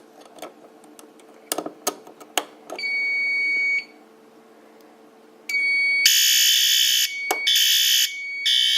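Fire alarm notification appliances set off during an audible walk test. A few clicks and rattles come first, then a steady high electronic tone sounds for about a second and stops. Near six seconds in it comes back, joined by a much louder buzzing horn that sounds in several pulses.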